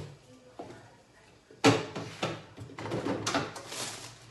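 Groceries being put away in a refrigerator: a sharp knock about a second and a half in, then rustling and clatter as items are set on the shelves.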